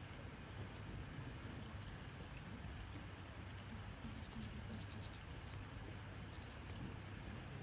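Wombat cropping and chewing grass: faint, scattered crisp tearing and crunching clicks, with a short run of them about four seconds in, over a steady low outdoor rumble.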